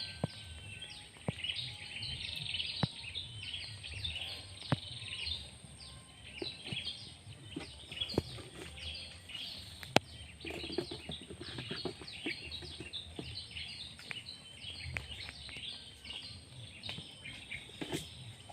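Dense outdoor chorus of short, high chirps, several a second and continuing throughout, from swamp wildlife, over a steady thin high whine, with a few sharp clicks.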